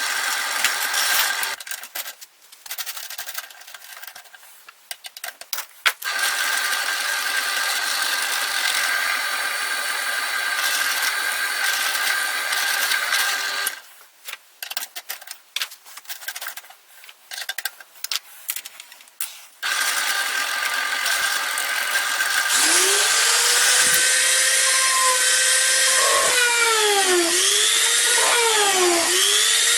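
Power tool motor running with a steady whine and hiss. It cuts out about two seconds in, runs again from about six seconds, stops again near the middle, then restarts. Near the end a higher whine rises and falls in pitch over and over, about once a second.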